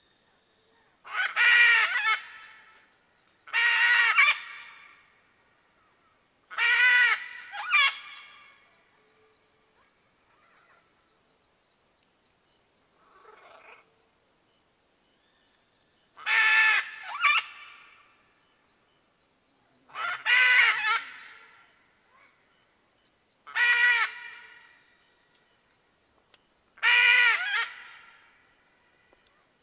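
Red macaw (arara-vermelha) giving harsh, raucous squawks, about a second each, repeated seven times a few seconds apart with a longer pause in the middle and one faint call during it.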